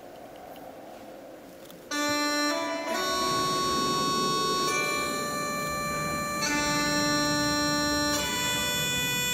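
Yamaha Electone electronic organ starting to play about two seconds in: loud held chords that change every second or two, with a low rumbling layer joining about a second later. Before the first chord, only a faint hall murmur.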